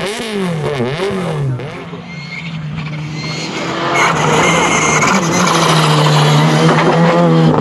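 Rally car engines: an engine revving up and down for about a second and a half, then a Škoda Fabia R5 rally car coming on at speed, its engine note held steady at high revs and growing louder from about four seconds in.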